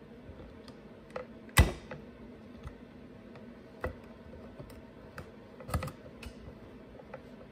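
Scattered small clicks and taps of needle-nose pliers against the plastic housing as old fuel lines are pulled out of a chainsaw's fuel tank. The sharpest click comes about a second and a half in, with another near six seconds.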